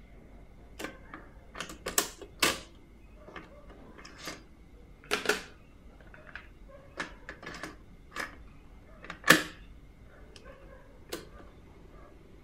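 Nakamichi 600II cassette deck's transport keys and cassette door being worked by hand: a string of separate sharp mechanical clicks and clacks as the door is opened and shut again and the play key latches down. The loudest click comes about nine seconds in.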